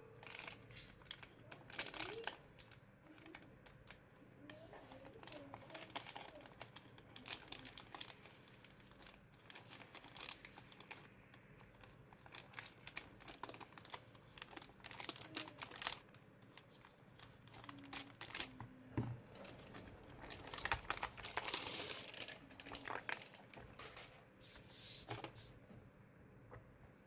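Irregular crinkling and rustling of something being handled, like plastic packaging, with scattered clicks and knocks; the loudest stretch comes about two-thirds of the way in.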